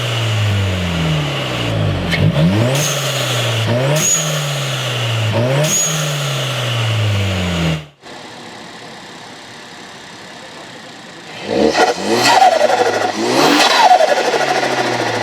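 A turbocharged car engine revving again and again, its pitch dropping and jumping back up, with short high chirps from the turbo and blow-off valve between revs. It cuts off abruptly, and after a quieter stretch a second turbocharged car revs sharply twice near the end.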